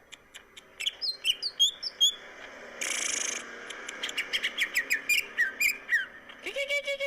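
Cucak ijo (green leafbird) singing a rapid, varied song of sharp chirps and whistles, in full song. About three seconds in comes a short harsh rasp, then a run of falling whistled notes, and a trill near the end.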